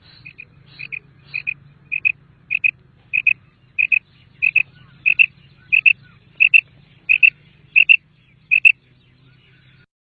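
Common quail calling: a run of short doubled notes, about three every two seconds, starting faint and growing louder, over a faint low hum.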